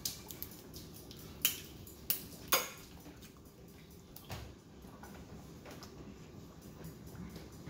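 Close-miked eating and drinking: a few sharp clicks in the first three seconds, then soft swallowing gulps as a drink is taken from a plastic bottle.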